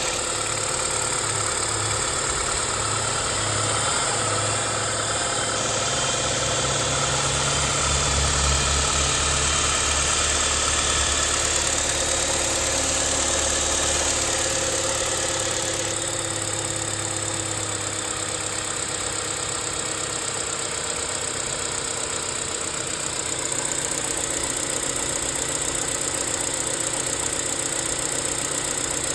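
BMW 1 Series (E87) engine running at idle with a rattle that appeared after its tensioner was replaced.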